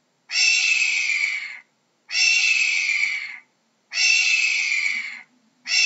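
Hawk giving harsh, raspy screams, each about a second and a half long and dropping slightly in pitch. Three screams come one after another at even spacing, and a fourth begins near the end.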